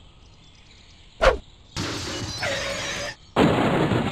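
A single sharp crack, then two loud bursts of rushing, hissing noise, each lasting about a second.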